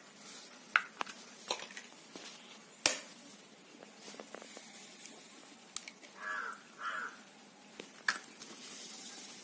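Eggs being cracked on the rim of a steel mixing bowl: a few sharp taps and clicks of eggshell on metal, the loudest about three seconds in. A crow caws twice about six seconds in.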